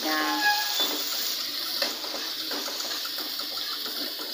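Chopped garlic and chilies sizzling in hot oil in an aluminium wok, with a metal spatula scraping and knocking against the pan as they are stirred.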